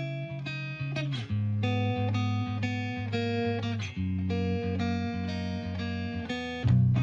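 Background music led by plucked guitar, with changing chords; a bass line comes in louder near the end.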